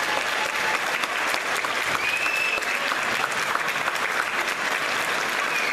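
Audience applauding steadily at the end of a band's performance.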